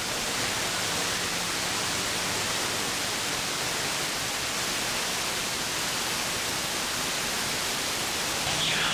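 Steady hiss of open-squelch radio static from an 11-meter (27 MHz) radio receiver between transmissions, with no station on the channel. A low hum comes in near the end as the next station keys up.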